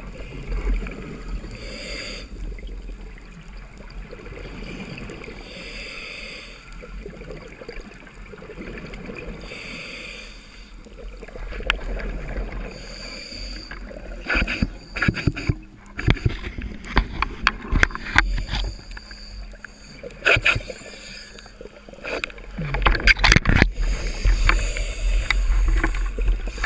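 Underwater sound heard through a camera's waterproof housing: a muffled low water rush with a soft hiss every few seconds. From about halfway on, a run of sharp clicks and knocks from the diver's speargun and gear, loudest near the end.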